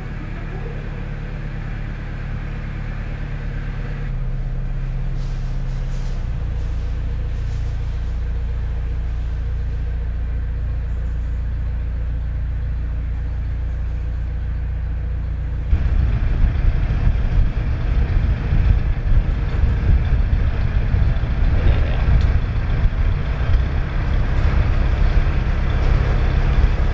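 Narrowboat engine running under load as the boat pushes against the flow in a brick canal tunnel, barely making headway. Its note steps up slightly twice early on, then about sixteen seconds in it turns suddenly louder and rougher.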